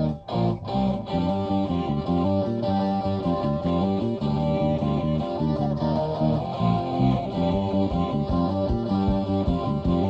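Instrumental heavy metal from a 1981 cassette demo: electric guitars playing a riff over bass and drums, with no vocals. The tape's sound is dull at the top end. There is a brief break just after the start.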